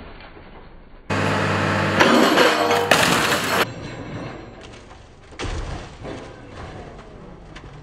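Scrapyard grapple crushing a car body: metal crunching and glass breaking, loud for about two and a half seconds starting about a second in, over the machine's low engine hum. A shorter crunch comes near the end.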